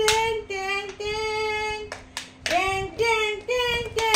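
A woman's high voice singing a wordless tune in long held notes that step up and down, with a few sharp taps between the phrases.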